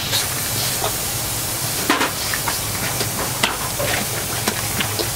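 Food sizzling and frying hard in a hot wok, with a few sharp clicks, the loudest about two and three and a half seconds in, over a steady low hum.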